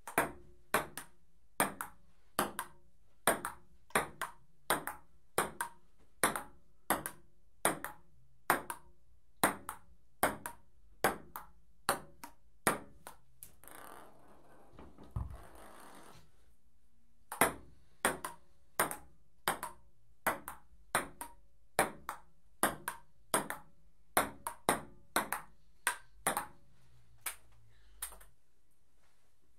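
Table tennis rally: a celluloid ping-pong ball clicking as it bounces on the table and is struck by the paddles, in a quick alternating rhythm of paired clicks. About halfway through, play stops for a few seconds, with a rustling sound and one low thump, then the rally resumes.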